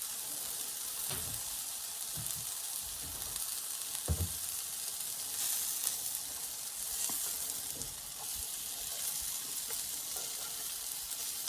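Banana-and-oat pancakes frying in a pan of hot oil: a steady high sizzle, with a soft knock about four seconds in and a few fainter ticks.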